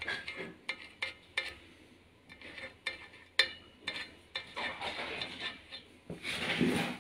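Paint marker scratching across the steel cover of a clutch pressure plate, with scattered sharp, light metallic clicks and clinks in the first few seconds.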